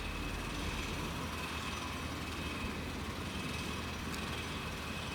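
Steady background noise: an even low hum and hiss with a faint high tone held throughout, and no distinct knocks or events.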